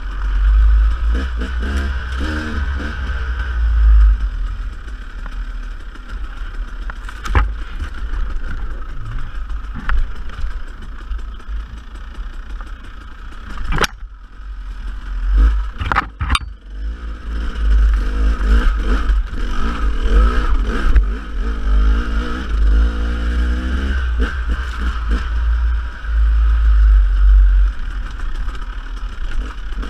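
Dirt bike engine revving up and easing off while riding rough single-track, with scattered knocks and clatter from the bike over the ground. Heavy wind rumble covers the microphone. The engine sound drops away briefly around the middle, broken by a few sharp knocks, then picks up again.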